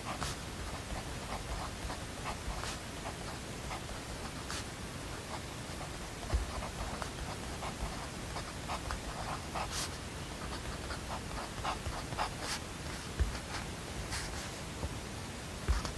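Pen scratching on paper in many short strokes, with a few soft low thumps, over a steady hiss.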